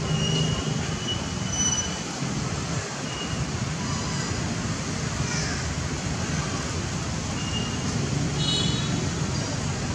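Steady rushing outdoor background noise with a few brief high-pitched chirps scattered through it.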